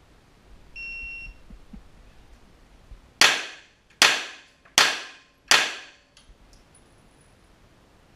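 Electronic shot timer beeps once, then about two seconds later a pistol fires four shots about three-quarters of a second apart, each ringing on in an indoor range.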